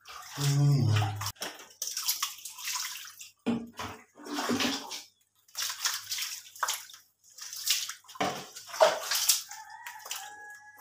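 Water poured from a plastic scoop over a small puppy and splashing onto a tiled floor, in a series of short pours.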